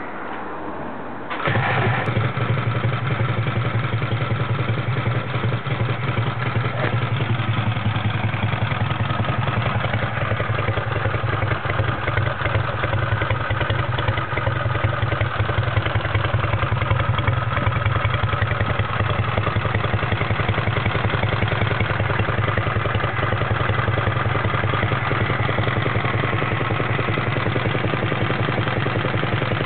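Sunbeam motorcycle's in-line twin engine kick-started, catching about a second in and then idling steadily.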